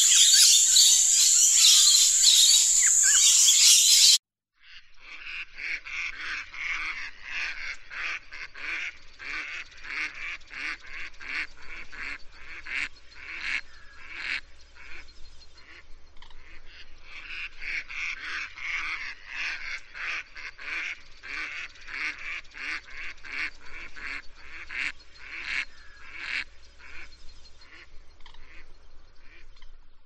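Lorikeets screeching, loud and shrill, for about four seconds, then cutting off abruptly. After a short gap, mallards quack in rapid, repeated runs for the rest of the time.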